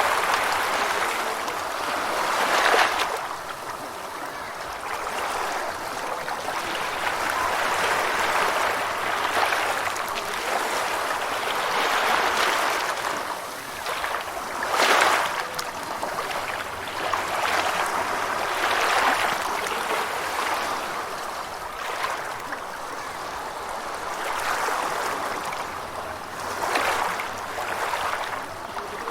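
Gentle ocean waves washing in and draining back, a steady wash of water that swells and eases every few seconds, with a sharper surge about three seconds in and another about halfway through.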